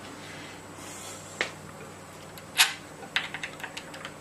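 Clicks and small plastic knocks of HDMI cable plugs being handled and pushed back into their sockets: a sharper click about two and a half seconds in, then a quick run of light ticks near the end, over a faint steady hum.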